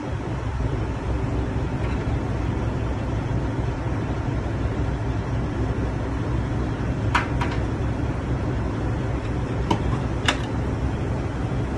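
Wind buffeting the phone's microphone, a steady low rumble throughout. A few sharp metallic clicks in the second half as the diesel nozzle is pulled from the tank and hung back on the pump.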